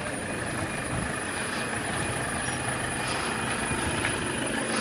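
Steady rushing noise of a swollen, overflowing stream in full flood, its water flowing hard.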